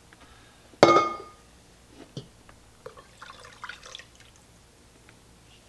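Stainless steel coffee carafe set down hard, about a second in: one sharp clunk with a brief ringing tone. After it come faint small clicks of the plastic lid being handled.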